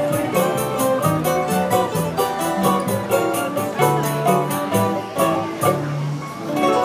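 Choro ensemble playing live: bandolim (Brazilian mandolin) and acoustic guitar (violão) over cavaquinho strumming, plucked double bass and pandeiro. The pandeiro's jingles keep a quick, even pulse and fall away near the end.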